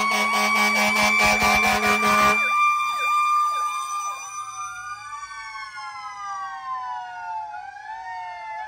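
Several fire apparatus sirens sounding at once: one winding slowly down in pitch, with others wailing and yelping over it. A loud steady blast cuts off sharply about two seconds in.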